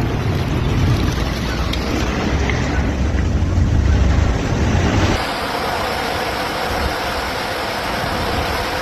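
Steady rush of water mixed with wind buffeting the microphone. About five seconds in, the sound switches abruptly from a heavy low rumble to a lighter, brighter hiss.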